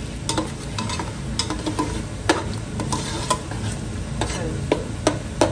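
Slotted metal spoon scraping and clinking irregularly against an aluminium pot as a tomato masala thinned with stock and water is stirred, over a steady sizzle from the hot pot.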